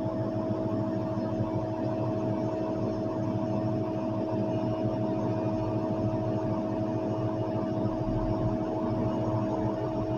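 Heavy-equipment diesel engine running steadily, a low rumble with a constant whine over it.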